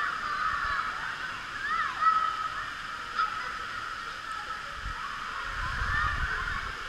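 Waterpark pool ambience: many distant children's voices and squeals blending together over steady splashing water. A low rumble joins in about five seconds in.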